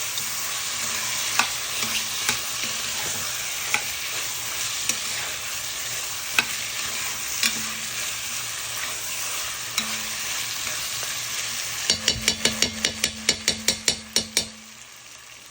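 Cut-up chicken sizzling in hot oil with curry seasoning in a pot, with occasional clicks of a spoon against the pot. Near the end comes a quick run of about a dozen clacks, then the sizzle drops off.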